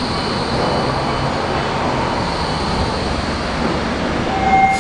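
A RET metro train pulls into the platform and slows to a stop alongside, with a steady rumble of wheels and running gear and a faint high whine that fades. A short steady high tone sounds near the end.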